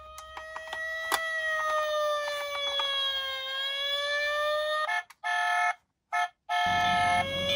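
Electronic siren from a toy emergency-vehicle minicar, a slow wail gliding up and down, with light clicks over it. About five seconds in it breaks into short choppy electronic tones with silent gaps, and a siren tone starts again near the end.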